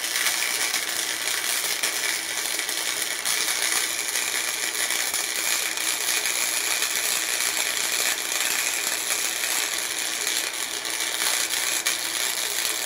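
Wire-feed welder's arc crackling steadily as a bead is laid around the joint between a steel exhaust pipe and a new catalytic converter's inlet tube, with a faint steady hum under it.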